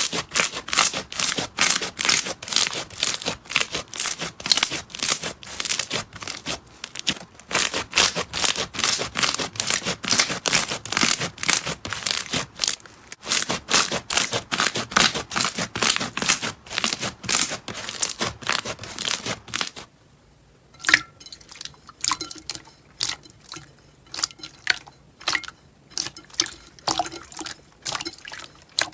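Slime being squished and worked by hand, giving a fast, dense crackling of small pops. About two-thirds of the way through the crackling thins out to sparse, separate pops.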